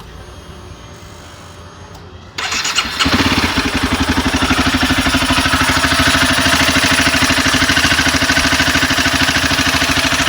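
Honda CBR250R single-cylinder engine started about two and a half seconds in, catching almost at once and settling into a steady idle. The owner hears a timing chain noise in it, which he puts down to a chain that is a little loose.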